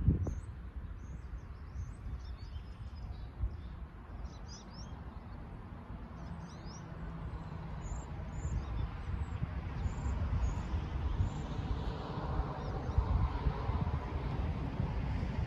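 Small birds chirping over gusty wind on the microphone, with a low rumble slowly building in the second half as distant diesel locomotives approach the crossing.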